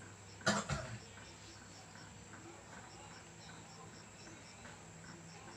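Two quick thumps close together about half a second in, over a faint background of evenly spaced high chirps.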